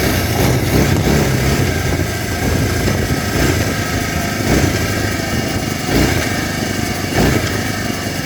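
Kawasaki Brute Force ATV engine running steadily as the quad is ridden along, with a few brief surges about halfway through and near the end.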